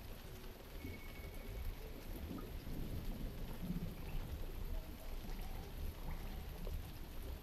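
Ambient water soundscape: a steady watery hiss like rain over a low, uneven rumble, getting a little louder about two seconds in.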